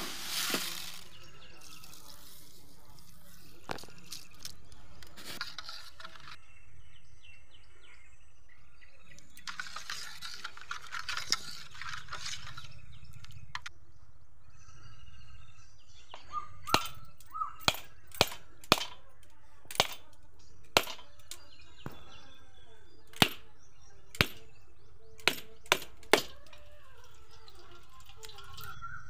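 A whole coconut struck about a dozen times with a hard object, a series of sharp separate cracks over about ten seconds in the second half, as the shell is split open to drain its water.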